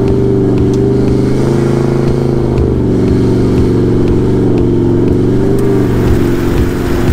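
Toyota LandCruiser 70-series 4.5-litre V8 turbo-diesel running through a 3-inch aftermarket exhaust at low, fairly steady revs while driving, heard up close from beneath the vehicle near the exhaust tip.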